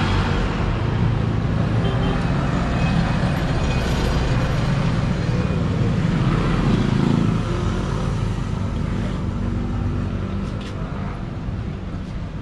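Motor vehicles running and passing on a road, a steady traffic noise that is louder for the first seven seconds or so and then eases off.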